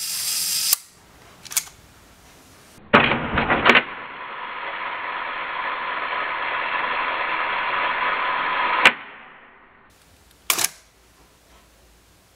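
Mamiya RB67 medium-format camera firing a one-second exposure: a loud clack as the large mirror flips up and the shutter opens, and a click as it closes. The release is then heard slowed to one-fifth speed as a cluster of deep, drawn-out clacks, a steady hiss and a final sharp click. Near the end comes a single short click of the leaf shutter fired with the mirror already locked up.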